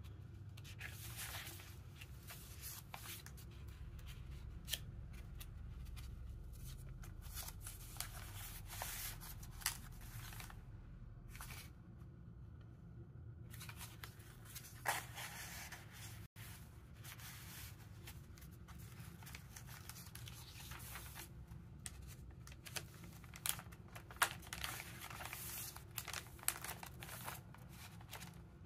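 Paper rustling and crinkling in short irregular bursts as the pages of a handmade paper journal are turned and cardstock tags are handled, over a low steady hum.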